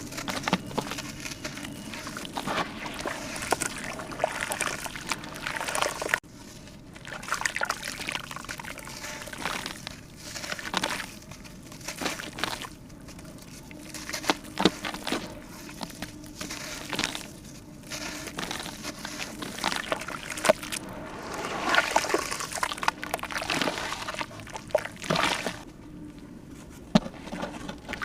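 Water sloshing and pouring in irregular bursts, with scattered clicks.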